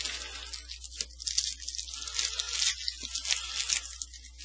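Foil wrapper of a football trading-card pack crinkling and tearing as it is opened by hand, in irregular crackly bursts.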